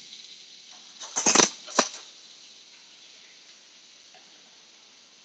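Steak frying in a stainless steel pan, a faint steady sizzle that slowly fades. About a second in come two short clattering knocks close together, the loudest sounds here.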